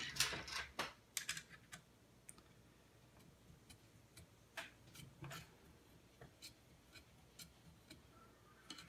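Faint, irregular small clicks and taps of the clamp screw being tightened down on a plastic Tavor Podium bipod: a quick run of clicks in the first second or so, then sparse single clicks.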